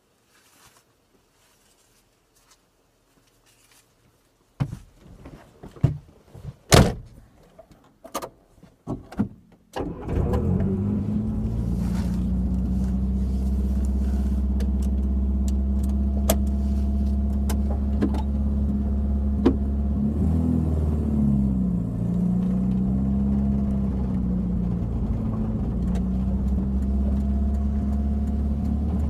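Inside an Austin Metro: a run of knocks and clicks in the cabin, then the four-cylinder A-series engine starts about ten seconds in and runs steadily. Its note dips and rises briefly about two-thirds of the way through as the car drives off.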